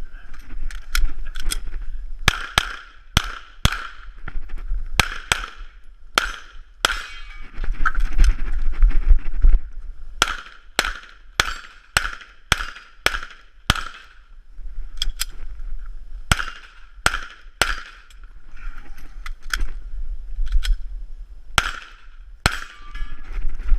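Pistol fire during a USPSA course of fire: dozens of sharp shots, many in quick pairs and short strings, with brief pauses between the strings.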